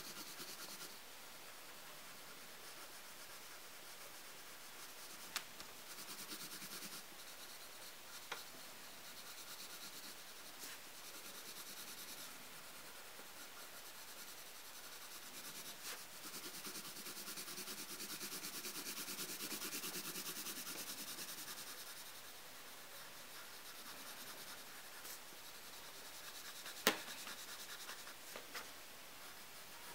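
Lyra Rembrandt Polycolor coloured pencil shading on paper: a faint, steady scratchy rubbing of the lead as an area is filled in with colour, louder for a few seconds after the middle. A few sharp ticks, the loudest near the end.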